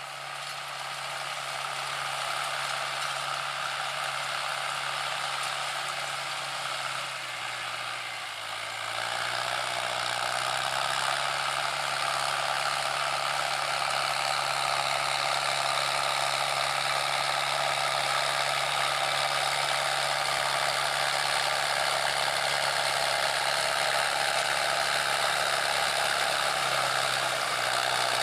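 Mahindra Arjun Novo 605 DI-i tractor's four-cylinder diesel engine running under load while driving a rear-mounted rotary tiller through paddy stubble, with the tiller's mechanical clatter over the engine. The sound dips briefly about eight seconds in, then grows steadier and louder.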